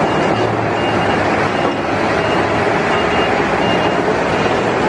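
Heavy tanker truck's diesel engine running as it drives through mud, with a reversing alarm beeping faintly in a steady series, about one beep every 0.7 s, that stops near the end.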